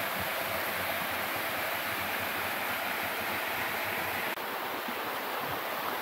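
Steady rush of water pouring down a stream cascade: an even hiss of falling water with no break, dipping slightly in level for a moment about four and a half seconds in.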